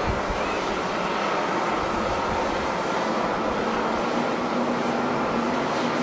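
Jet engines of an ANA passenger jet taxiing past at close range: a steady rushing jet noise. A faint low hum joins about four seconds in.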